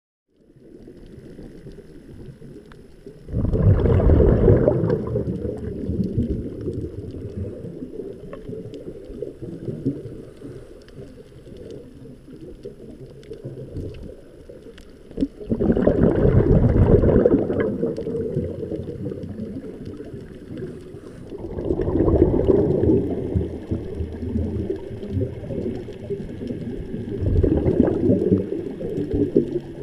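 A scuba diver's exhaled air bubbling out of the regulator, heard underwater: four loud bubbling, gurgling exhalations, about 3, 15, 21 and 27 seconds in, with quieter gurgling between them.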